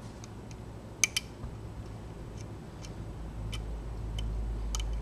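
Lock pick working the pins of a 7-pin Mul-T-Lock Garrison Integrator cylinder held in a false set: scattered light metallic clicks, two sharper ones about a second in. A low rumble builds in the second half.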